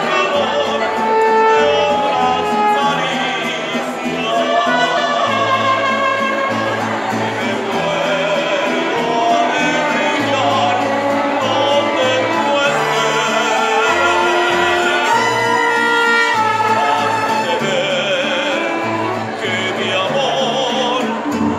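A live mariachi band playing a ranchera, with violins, trumpets and guitars over a steady pulsing bass line.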